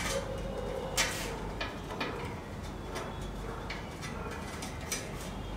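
Scattered plastic clicks and rustles from cable ties being pulled tight around wiring and a plastic drag chain, with the sharpest snaps about a second in and again near the end.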